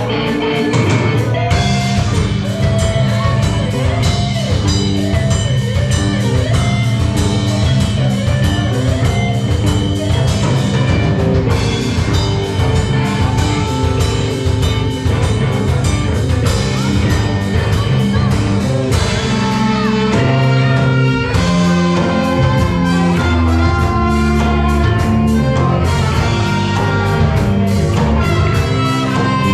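A ska band playing live, with drum kit, guitar and a strong bass line under held melodic notes.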